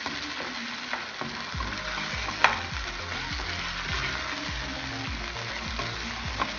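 Mutton pieces sizzling in a spiced tomato masala in a nonstick karahi while a spatula stirs and scrapes them around the pan. There are scattered clicks, with one sharp knock about two and a half seconds in.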